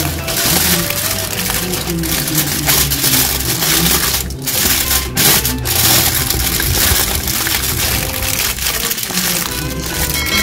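Aluminium foil crinkling and crackling as hands crumple and press it tight around a whole fish, with background music under it.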